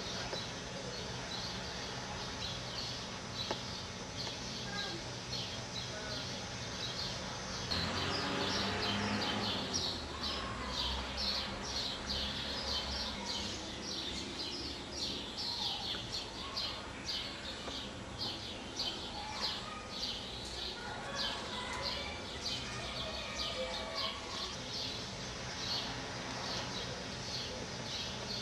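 Birds chirping over and over, short high calls several a second, growing thicker about a third of the way in. A low rumble joins for a few seconds around the same point.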